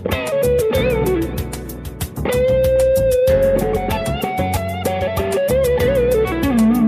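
Strat-style electric guitar playing a lead line through a Keeley compressor and an Ibanez TS9 Tube Screamer: bent notes with vibrato and one long sustained note about two seconds in. Under it runs a backing track with a steady drum beat and bass.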